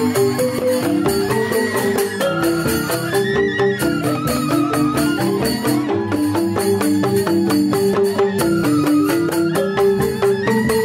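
Live Balinese joged bumbung gamelan: bamboo xylophones (grantang) play fast, dense interlocking note patterns, with kendang hand drums beating and a bamboo suling flute carrying a higher gliding melody above.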